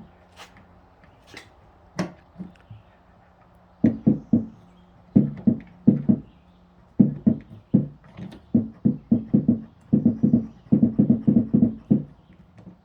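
Rapid dull tapping on the dented panel during glue-pull dent repair. A few scattered taps come first, then a run that quickens to about five taps a second near the end.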